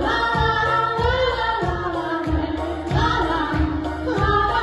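Music: a pop song with a steady beat from a backing track, with a sung melody line held over it.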